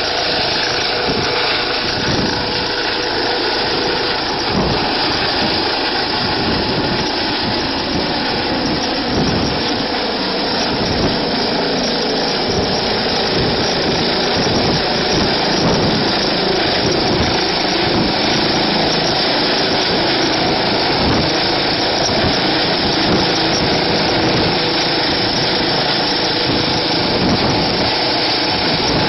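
Eurocopter EC135 helicopter's twin turboshaft engines and rotor running steadily, a dense, even noise with a faint steady tone.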